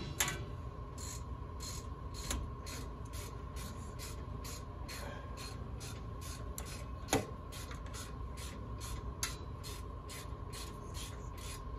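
Hand tool working on the exposed drum-brake shoes and springs of a 1960 Chevrolet El Camino, metal on metal: a steady run of light scraping ticks, about three a second, with a sharp metal click about seven seconds in and a smaller one near nine seconds.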